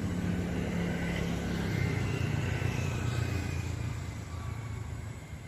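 Low motor-vehicle engine rumble, fading over the last couple of seconds.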